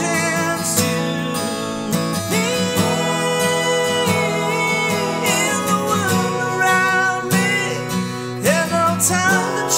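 A man singing while strumming a capoed Yamaha acoustic guitar.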